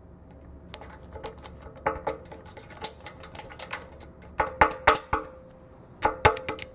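Small screwdriver tip picking and tapping at rust packed inside the threaded drain bung of a steel air compressor tank: a run of sharp metal clicks with a faint ring from the tank. They get louder and come in quicker bunches from about four seconds in.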